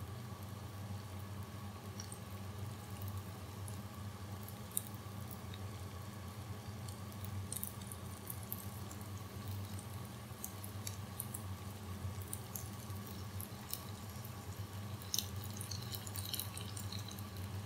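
Breaded chicken nuggets deep-frying in hot oil: a steady sizzle with scattered pops and crackles that grow busier near the end, over a low steady hum.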